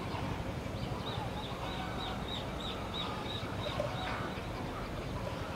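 A bird calling a quick run of about a dozen short, high notes, about three or four a second, over a steady low rumble.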